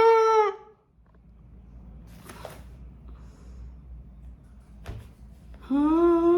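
A person's voice making drawn-out wordless sounds, one held note at the start and a slightly rising one near the end, with a brief rustle and a single click in between.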